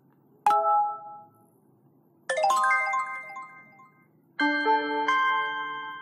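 Android phone notification tones played one after another: a short chime about half a second in, a quick cascade of bell-like notes a couple of seconds in, and a ringing chime of several notes about four seconds in, each fading out.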